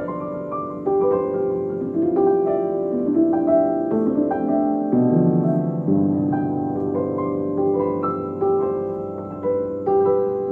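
Background instrumental music: a piano playing a gentle melody over held notes.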